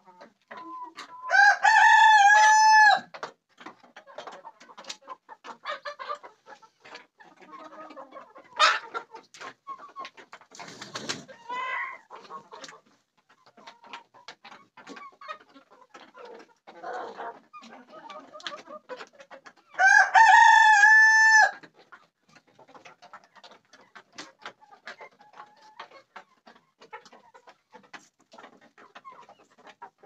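Rooster crowing twice, about twenty seconds apart, each crow about a second and a half long. In between, a flock of chickens clucks with many short calls.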